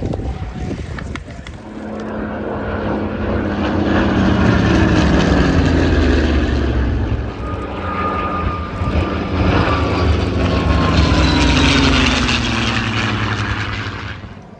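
Propeller-driven aircraft flying past in a display, its engine note swelling and falling in pitch as it passes, twice. It cuts off suddenly at the end.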